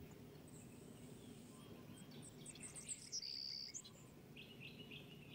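Faint background birdsong: scattered short high chirps and a few brief whistled notes, the loudest about three seconds in, over a low steady ambient hum.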